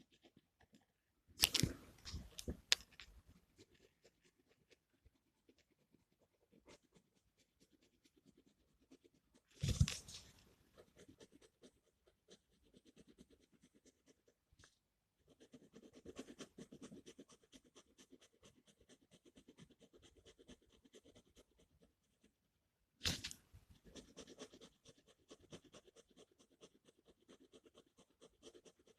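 Gel pen scratching on paper in quick, uneven strokes while colouring, faint, with three louder handling noises at about a second and a half in, around ten seconds in, and near twenty-three seconds in.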